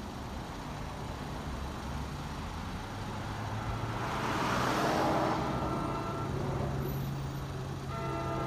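A road vehicle passing by, swelling to its loudest about five seconds in and then fading, over a steady low hum.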